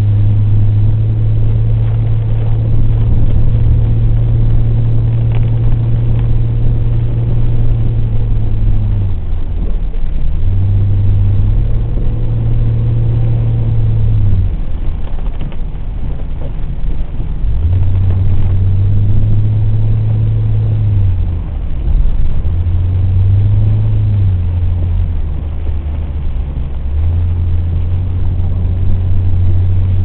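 Car engine heard from inside the cabin, droning steadily under power in several long pulls and falling back in between as the throttle eases, over a steady hiss of road noise.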